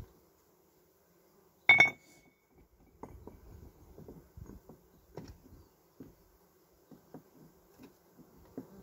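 Rocks being lifted and shifted by hand: one stone strikes another with a sharp, ringing clink about two seconds in, followed by a run of small knocks and scrapes. A faint steady buzz of honeybees runs underneath.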